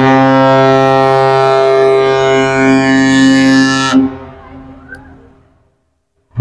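Synthesized cargo-ship horn: one deep blast of about four seconds. It cuts off and fades away in an echo.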